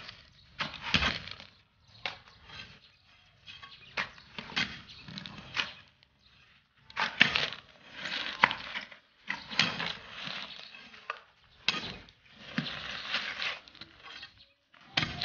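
Shovels scraping and digging into gravelly soil, irregular strokes with sharp clicks of stones against the blades.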